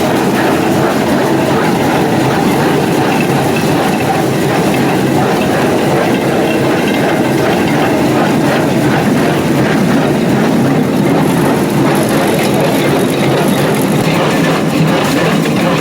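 John Deere 328 square baler running under test, a steady mechanical clatter with the tractor engine beneath it.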